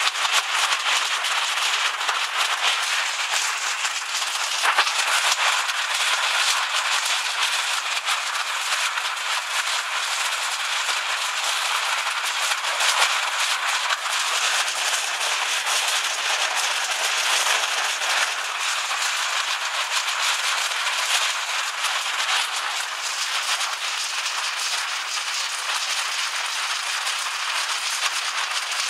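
Hailstones and heavy rain pelting down in a dense, steady rattle of countless small impacts.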